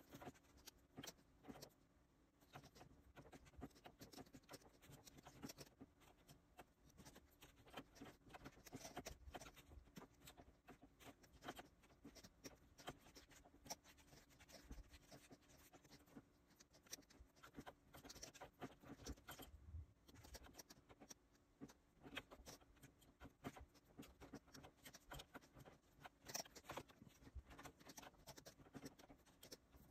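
Quiet, irregular clicking of keyboard keys pressed for shortcuts, mixed with a plastic stylus tapping and stroking on a pen display's screen.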